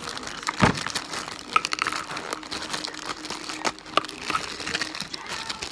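Crinkling and rustling of a slime kit's packaging being opened and handled, with scattered clicks and one sharp knock about half a second in.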